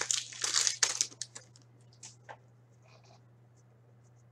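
Hockey trading cards being flicked and shuffled through by hand: a quick run of sharp clicks and rustles in the first second and a half, then a few scattered clicks.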